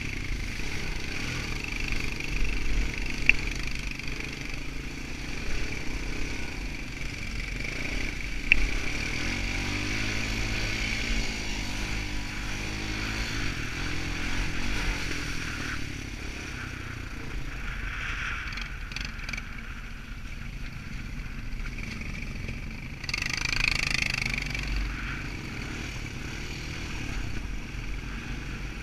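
Quad bike engine running on a muddy dirt track, its note rising and falling with the throttle. Two sharp clicks come a few seconds in and about eight seconds in, and a brief rushing burst comes about twenty-three seconds in.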